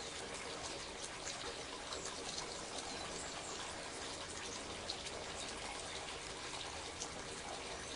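Steady running-water noise, a continuous trickle and splash with small ticks scattered through it.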